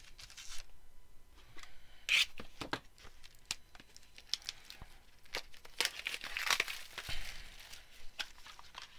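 Plastic wrap being torn and crinkled by hand as a small trading-card box is unwrapped and opened, in irregular short bursts with small clicks and taps from handling the box.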